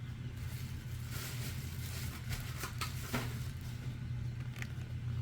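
A few faint clicks and rustles from handling a boxed diecast car and its packaging, over a steady low hum.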